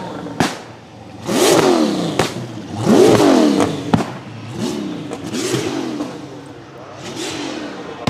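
A drift car's engine revs hard in repeated bursts, its pitch sweeping up and dropping back about five times, with a few sharp cracks in between.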